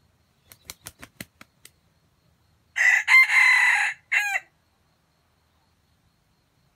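Red junglefowl rooster crowing once: a short crow of about a second and a half, ending in a clipped final syllable. It is preceded by a quick run of about seven sharp taps.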